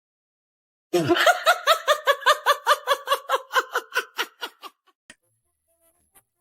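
A person laughing in a long string of quick, even 'ha-ha-ha' bursts, about five a second, starting about a second in and fading away over a few seconds.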